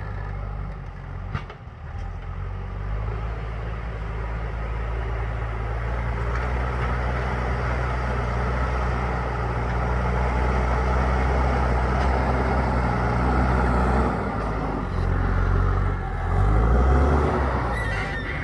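Diesel engine of a JCB 3DX Super backhoe loader running steadily, growing a little louder through the first half. In the last few seconds its note shifts up and down as the machine works.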